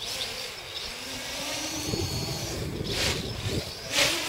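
Electric motors and propellers of a WhirlWind 600 V-tail quadcopter whining in flight, pitch shifting as it manoeuvres, with two brief louder surges about three and four seconds in.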